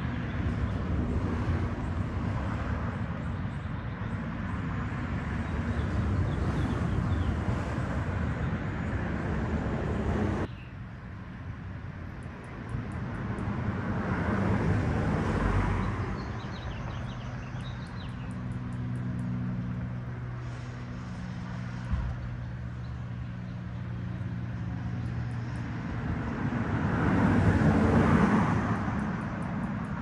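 Road traffic: a steady hum of cars, with several cars passing that swell and fade.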